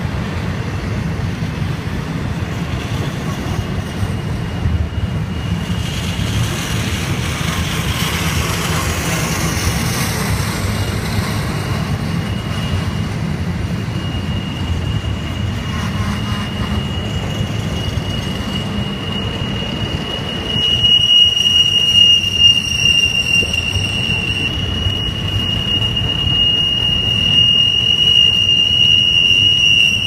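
Norfolk Southern intermodal train's double-stack well cars rolling past: a steady low rumble of steel wheels on rail, with a high, steady wheel squeal that turns much louder about two-thirds of the way through.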